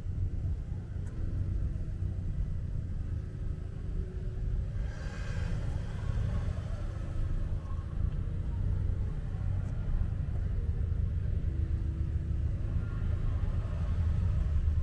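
Low, continuous rumble of street traffic, with a car passing close by about five seconds in, swelling and then fading.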